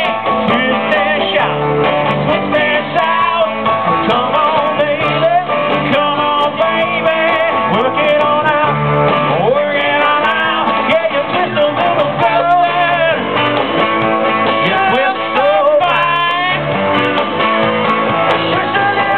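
A live band playing a song on electric guitars and keyboard, with singing.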